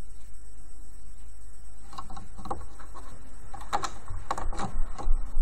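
Light, irregular clicks and taps of plastic as rubber loom bands are stretched onto the pegs of a plastic loom. The clicks come in scattered clusters from about two seconds in, over a low steady hum.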